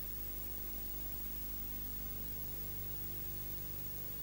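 Steady hiss with a low, even electrical hum underneath. This is the recording's own background noise, and nothing else sounds.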